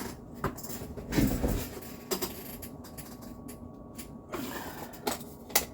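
About half a dozen light clicks and knocks at irregular spacing, from kitchen utensils and food being handled at a counter.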